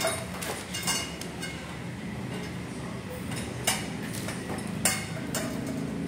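Steel tubes of a flat-pack rack being handled, clinking against each other a few times in short sharp knocks, over a steady low background noise.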